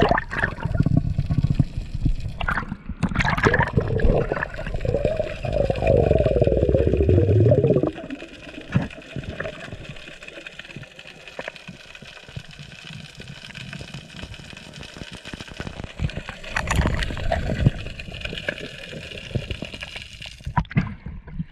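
Muffled underwater water sound as heard by a submerged camera: gurgling and sloshing with a deep rumble, loud for the first eight seconds or so, then dropping to a quieter hiss, with a short louder rush of water about sixteen seconds in.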